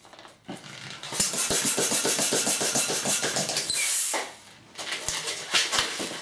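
Hand pump inflating a long red twisting balloon: a loud rush of air for about two and a half seconds, with a short burst of air near its end. Then the balloon rubs and squeaks as its neck is handled to tie it off.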